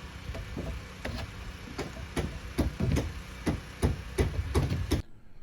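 Repeated hammer blows on wood, growing denser and louder to about three strikes a second, over a steady low engine hum; both stop abruptly near the end.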